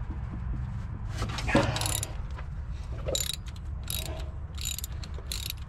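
Hand socket ratchet wrench working a bolt in short back-and-forth strokes, a clicking rasp about every two-thirds of a second from about two seconds in, after a single metallic clunk.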